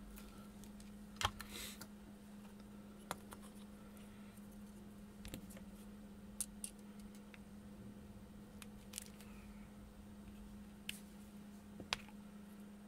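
Several sharp clicks and taps of small tools and a perfboard being handled on a workbench during soldering, spaced irregularly, the loudest about a second in, over a steady low hum.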